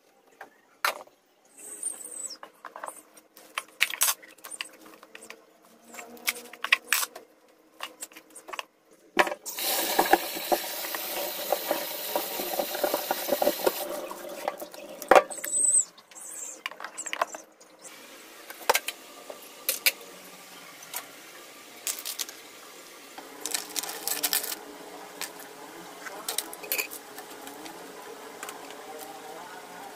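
Kitchen handling sounds: light clicks and knocks of things being set down and moved about. About nine seconds in, a tap runs into a stainless steel sink for about five seconds while hands rinse under it. Then come more scattered clicks as the cook goes on working.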